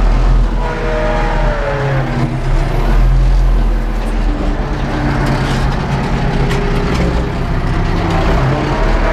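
Ursus 914 tractor's diesel engine running steadily under load while pulling a disc harrow through heavy fallow ground, heard from inside the cab.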